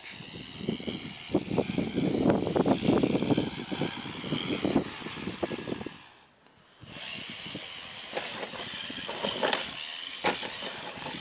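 Radio-controlled rock crawler driving over grass and dry ground, its tyres and chassis crackling and scuffing through the grass under a high motor whine. The noise drops away briefly about six seconds in, then the whine returns with scrabbling and clicks as the truck climbs against a wooden fence.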